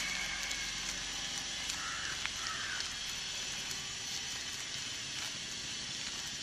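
Thin plastic cover around a coconut coir-pith rooting bed crinkling and rustling as hands press and work it around a tree branch, with small scattered crackles.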